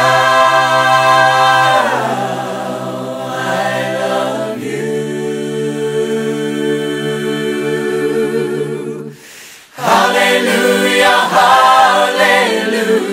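Voices singing a cappella in harmony, holding long wordless chords. The singing dips briefly about nine seconds in, then picks up again.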